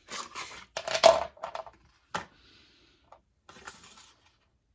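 Paperboard pen box rustling in the hands while plastic fineliner pens click and clatter down onto a tabletop in short bursts, the loudest a second in and a sharp single click a little after two seconds.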